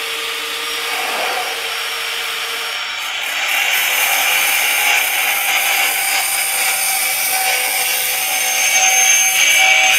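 Handheld angle grinder with a cutting disc running and cutting through 0.75 mm light-gauge steel channel: a steady motor tone under a hissing grinding noise that grows louder about three and a half seconds in as the disc bites into the metal.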